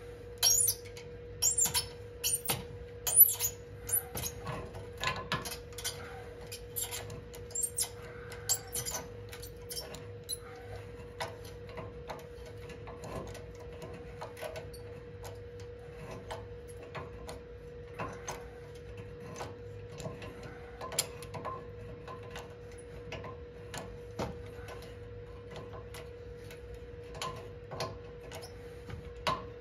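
Sharp metallic clicks and creaks as a heat-loosened, rust-seized bumper bolt is worked back and forth and wound out with locking pliers. The clicks are loud and frequent for about the first ten seconds, then sparser and fainter, over a faint steady hum.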